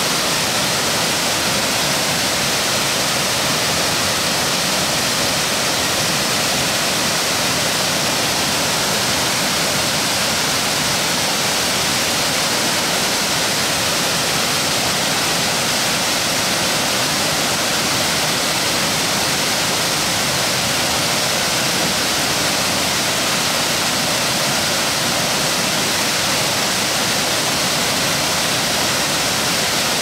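Ohko-no-taki waterfall plunging down the rock face into its plunge pool: a steady, loud rush of falling and splashing water.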